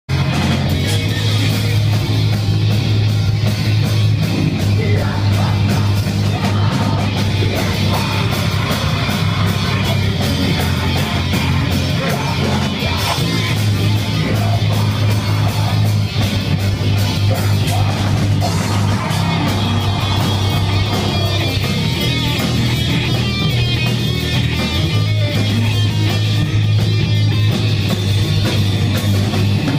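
Death metal band playing live and loud: distorted guitars and bass holding heavy low notes over dense, fast drumming, with harsh shouted vocals.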